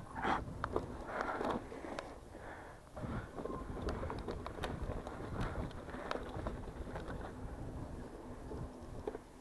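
Mountain bike riding a dirt track: tyres rolling and crunching over the dirt, with irregular clicks, knocks and rattles from the bike over bumps, above a constant low rumble.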